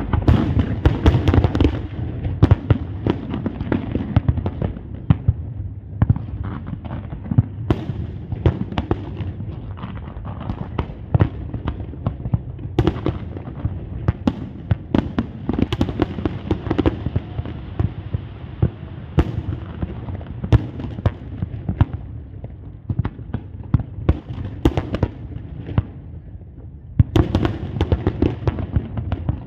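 Fireworks display: dense, rapid bangs and crackles of bursting shells, thinning out briefly near the end before a fresh volley.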